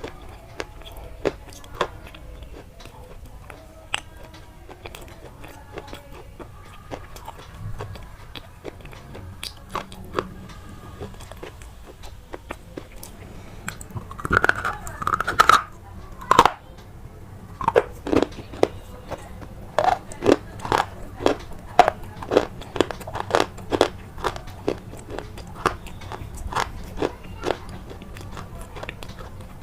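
Repeated sharp crunches of something brittle being bitten or crushed, sparse at first and then about one to two a second through the second half, with a louder cluster of crunches about halfway through.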